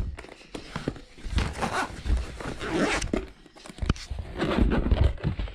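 Handling noise as the DJI Mavic Air drone is brought out: irregular rustling and scraping with several sharp knocks, one clear click about four seconds in.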